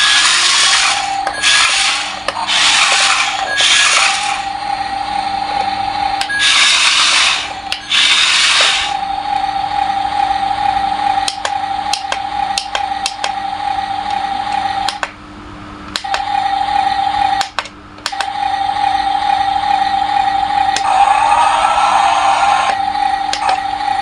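Yigong YG258E remote-control toy dump truck running. Its small electric motors and plastic gears whir in about six short bursts of a second or so in the first nine seconds, over a steady electronic engine-sound effect from the toy's speaker that cuts out briefly twice, with a few clicks in between. Near the end the dump bed is raised and lowered with rising whirs.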